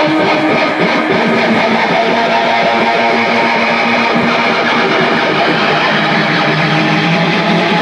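A rock band playing live, led by strummed electric guitar over a dense, steady wall of sound.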